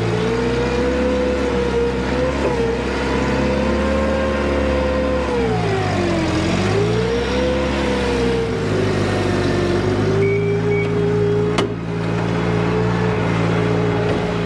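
Forklift engine running steadily as it is driven into position, its revs dipping and then picking up again about halfway through. A single sharp knock comes near the end.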